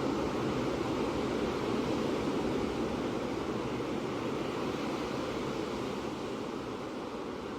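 Ocean surf: a steady, continuous wash of waves, easing a little toward the end.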